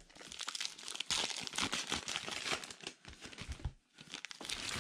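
Foil trading-card pack wrappers crinkling and crackling as packs of baseball cards are handled and ripped open, with a brief lull near the end.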